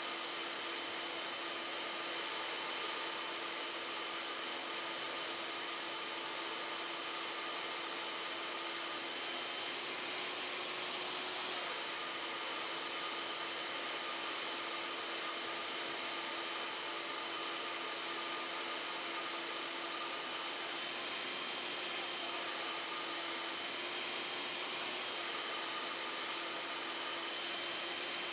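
Hair dryer running steadily: an even rush of air with a constant motor hum and a high whine. The whine drops out and the hum shifts up a little for a moment about ten seconds in.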